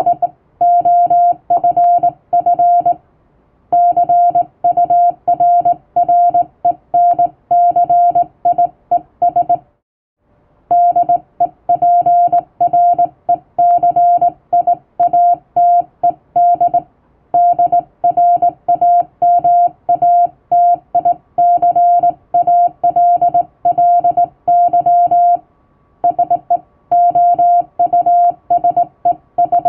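Morse code (CW) sent by hand on a straight key: a steady mid-pitched beep keyed on and off in short and long elements, with a few pauses of about a second between groups.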